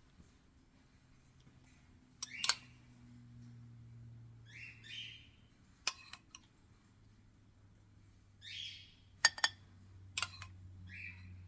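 A spoon clinking sharply against a serving dish a few times while mango cubes are spooned into the trifle, with short high squeaky scrapes between the clinks. A low steady hum runs underneath.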